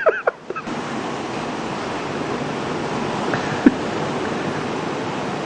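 Ocean surf washing steadily on the beach, with one short tap about three and a half seconds in.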